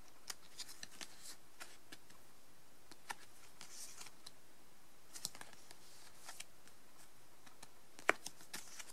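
Stiff printed photo cards handled and flipped one after another: scattered light clicks and brief paper swishes, with the sharpest click near the end.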